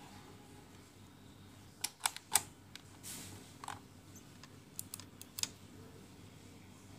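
Light plastic clicks and taps from handling a wall-plug power adapter and its DC cable while plugging in. There are three quick clicks about two seconds in, the loudest among them, a single one a little later, and a cluster of smaller ticks near the five-second mark.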